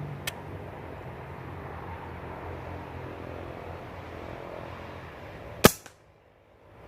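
A steady low background rumble with a faint click near the start, then a single sharp crack of a 5.5 mm (.22) Benjamin air rifle firing, a little under six seconds in, after which the sound cuts out abruptly.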